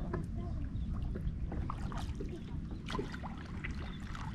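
Kayak on the water: wind rumbling on the microphone, with small scattered splashes and drips of water.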